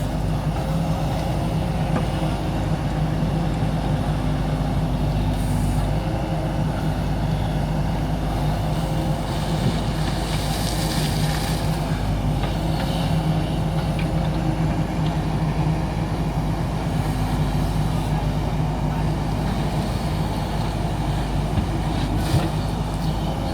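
JCB backhoe loader's diesel engine running steadily while the machine works. A hiss comes about ten seconds in, and a short knock near the end.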